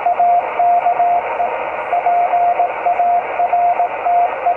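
Morse code (CW) on the 17-metre amateur band, received through an Icom IC-718 HF transceiver's speaker: a single steady tone keyed on and off in dots and dashes over constant band static.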